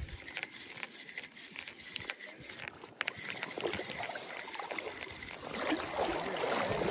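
Spinning reel ticking as it is cranked in against a hooked fish, joined near the end by louder water splashing as the fish thrashes at the surface.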